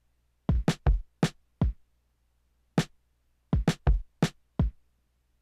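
Sampled drum track from a teenage engineering OP-1 Field playing on its own: about eleven separate drum hits, kicks among them, in a loose, hand-played beat with short silent gaps. The beat was played live rather than programmed, and two different kick samples are used to give accents.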